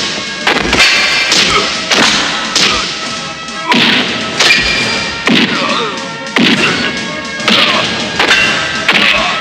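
Film fight-scene punch and hit sound effects: about a dozen sharp whacks and thuds, roughly one a second, over a faint music score.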